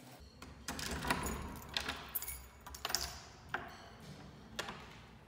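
A bunch of keys jangling as a key is pushed into a front-door lock and turned, giving a series of sharp metallic clicks and rattles.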